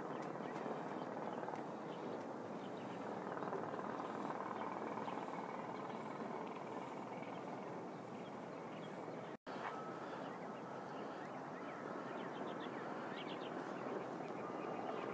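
Steady outdoor background noise with a few faint bird chirps. The sound drops out completely for an instant about nine seconds in.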